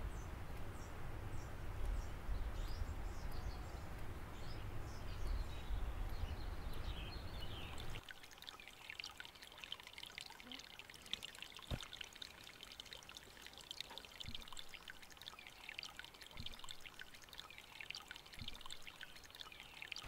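Running water, a steady stream or trickle, with small birds chirping over it. About eight seconds in the water sound stops abruptly, leaving birdsong and a few faint knocks.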